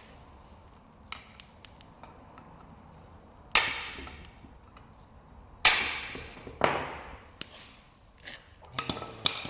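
Sharp metal clanks from a hammer and steel tools (punch, chisel, pry bar) on a leaf spring. Two loud strikes come a couple of seconds apart, each ringing on for about a second, followed by a lighter clank and some small taps.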